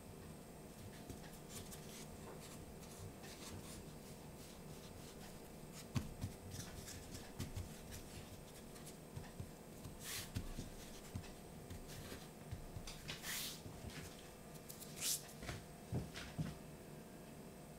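Hands patting and pressing the edges of a sheet of cheese pastry dough on a bamboo cutting board: faint soft taps and knocks with a few brief brushing rubs. Near the end a knife presses down through the dough onto the board with a few light knocks.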